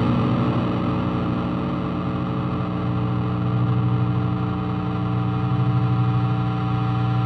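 Distorted electric guitar drone, heavy with effects: steady held tones ringing on without any drumbeat.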